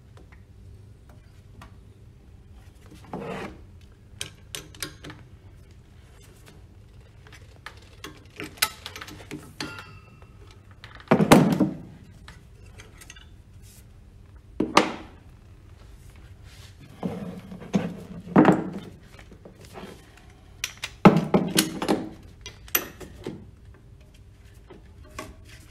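Irregular metal clunks and knocks from the split coupling of a Grundfos NBS end-suction pump being fitted by hand around the pump shaft. The loudest knocks come about eleven seconds in and again about twenty-one seconds in.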